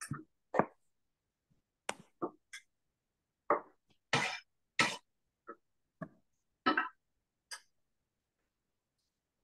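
A cooking utensil knocking and scraping against a frying pan as vegetables are stirred: about a dozen short, irregular clatters with silence between them.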